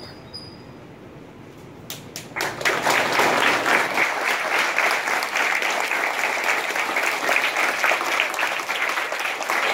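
A large crowd of schoolboys clapping: a few scattered claps about two seconds in, then steady applause.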